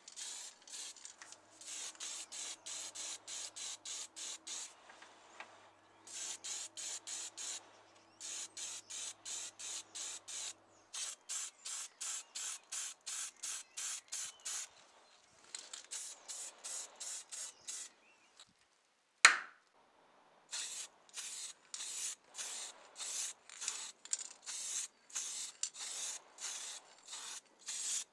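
Spray paint hissing out in short rapid spurts, about three a second, in runs with brief pauses, as small model car parts are painted. A single sharp click about two-thirds of the way through is the loudest sound.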